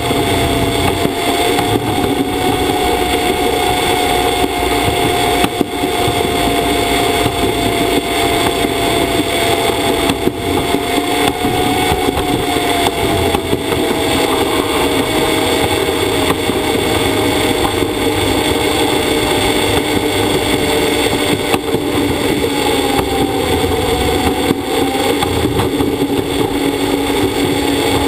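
Shweeb pod's wheels running along its overhead monorail rail, a steady loud rumble and whine inside the pod's shell. A thin whining tone in it slowly falls in pitch.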